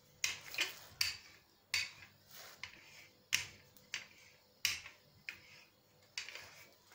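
Wooden rolling pin working pizza dough on a stone countertop, giving about ten sharp clacks, irregularly spaced.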